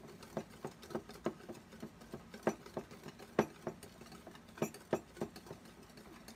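A utensil clinking and tapping against a ceramic bowl as instant coffee, sugar and hot water are beaten by hand into Dalgona foam. Irregular quick clicks, several a second, with a few sharper knocks in the middle.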